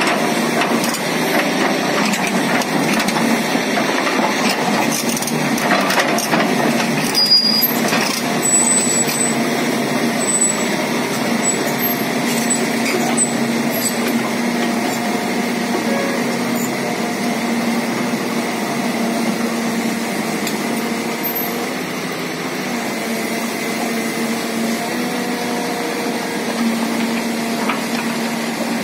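Hydraulic excavator's engine running steadily under load while it drags a stripped steel crawler undercarriage, the tracks grinding and scraping over gravel. A few sharper metal knocks come about six to eight seconds in.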